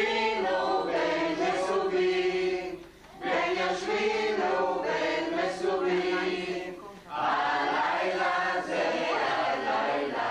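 A group of voices singing a Passover Haggadah song together, in sung phrases with short breaks about three and seven seconds in.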